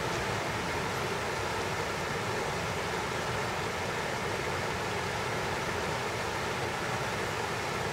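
Water rushing steadily over a concrete weir, a constant even hiss with no changes.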